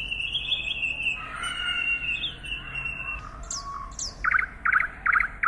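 Songbird singing: a long, high, warbling whistle, then two quick falling chirps and a run of four short, evenly spaced chirps near the end.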